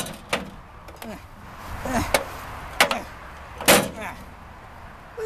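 Four sharp knocks and clunks from a microwave oven's casing and parts as they are pried and pulled off by hand, with short grunts in between.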